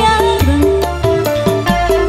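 Live dangdut band music: a stepping melody line over a steady drum beat.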